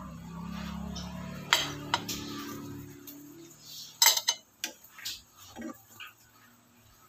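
Metal fork and wooden spatula clinking and scraping against a frying pan and plate as a cooked pancake is lifted out: sharp clinks about a second and a half in, a loud cluster around four seconds, then a few lighter taps. A low steady hum runs under the first few seconds.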